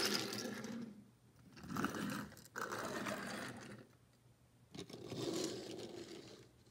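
A toy die-cast car and a toy Lego locomotive pushed by hand across a wood-grain floor, their small wheels rolling and rattling in three stretches with short pauses between them.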